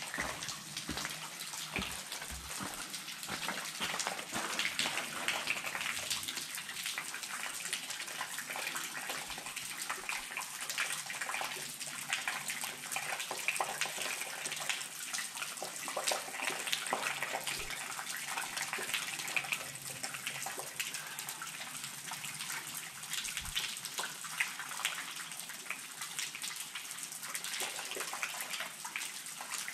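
Water trickling and dripping: a steady splashing with many small drips.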